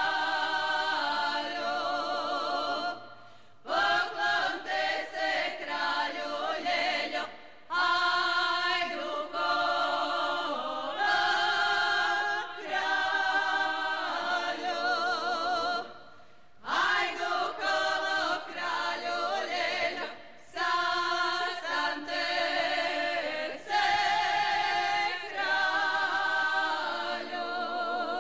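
A cappella women's folk choir singing a Croatian Slavonian kraljice song in close harmony with vibrato. The sung phrases are a few seconds long, each followed by a brief pause.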